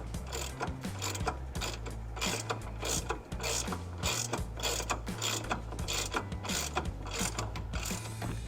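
Ratchet wrench clicking in repeated short strokes, about two or three a second, over background music with a steady bass line.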